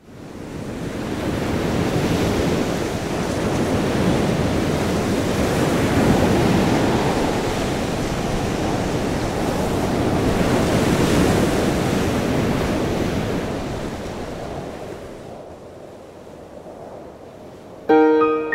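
Ocean surf: waves washing in slow swells that fade in at the start and die away after about fifteen seconds. Piano music begins just before the end.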